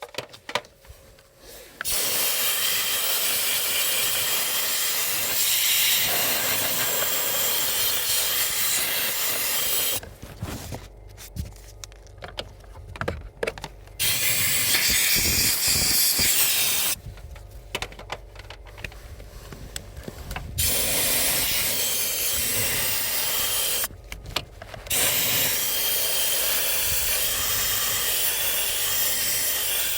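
A pressurized spray jet hissing in four long bursts of several seconds each, with light knocks and clicks in the short gaps between; consistent with blowing or spraying out a car's evaporator and blower housing during cleaning.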